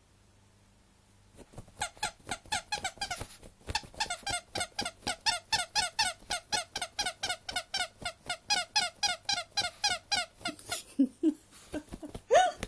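Rapid rhythmic squeaking, about five squeaks a second, from a dog digging at a sheet over her toy porcupine, with a short break early on and a brief rising squeal near the end.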